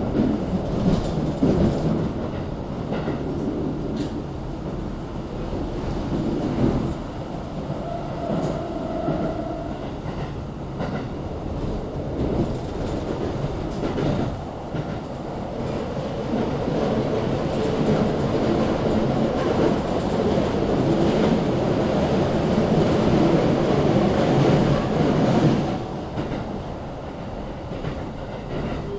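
Keikyu New 1000 series (Siemens GTO) electric train heard from inside the passenger car while running: a steady rumble of wheels on rail with scattered knocks. It grows louder through the middle and eases off a few seconds before the end.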